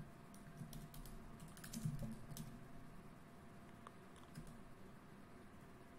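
Faint typing on a computer keyboard: scattered key clicks, most of them in the first two and a half seconds.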